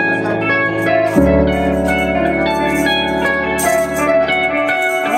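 Band rehearsal music: sustained keyboard chords over a deep bass note that comes in about a second in and stops near the end. A tambourine and shaker rattle over the last second or so.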